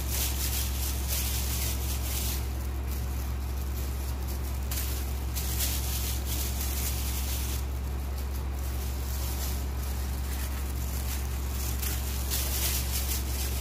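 Loose plastic food-handling gloves rustling in patches as hands set balls of bun dough onto a baking tray, over a steady low hum.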